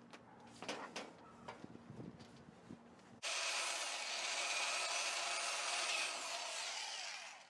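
A few light knocks and rubs from a sheet-metal panel being handled. About three seconds in, a hand-held electric drill starts suddenly and runs steadily for about four seconds, its bit boring a screw hole through the sheet-metal body, then winds down near the end.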